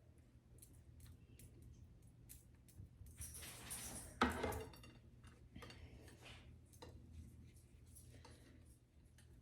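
A serving spoon clinking and scraping against a dish while shredded chicken fajita filling is scooped onto a flour tortilla, with a louder scrape and a knock about four seconds in.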